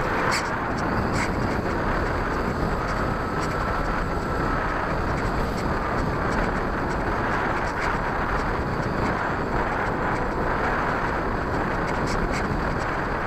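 Onboard audio of an RC airplane in flight: a steady rush of air over the camera microphone, with a faint motor-and-propeller whine that wavers in pitch and fades out about halfway through as the plane comes down low to land.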